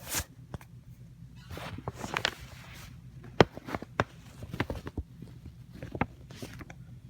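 Fingers picking at and handling the packaging of a trading-card structure deck, trying to work it open: a short scraping rustle about two seconds in, then a series of sharp clicks and taps.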